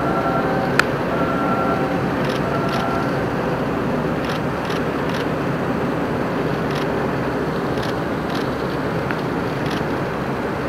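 Steady waterfront background noise, a dense hiss and rumble, with one sharp click about a second in.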